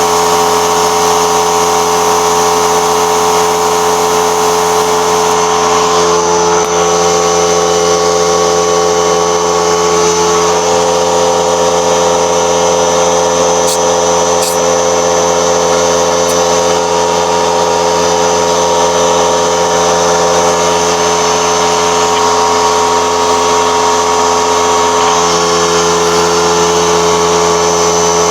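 A motor-driven machine running steadily with an even, loud hum of several held tones, shifting slightly in pitch a few times.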